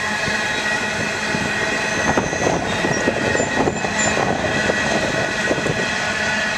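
Empty steel coal hopper cars of a freight train rolling past on the rails, a steady rumble and rattle with a faint ringing. From about two seconds in until near six seconds there is a run of sharper clanks and bangs, with a couple of brief high squeals among them.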